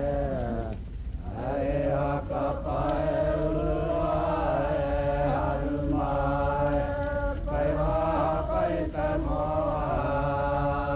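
Chanting on a steady held pitch, broken by short pauses about every few seconds.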